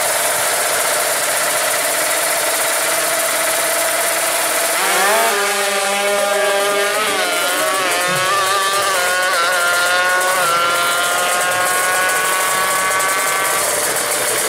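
Drag-racing motorcycle engine held at high revs on the start line, then launching about five seconds in and accelerating hard down the strip. Its pitch climbs and drops back with each of several gear changes, thinning out near the end.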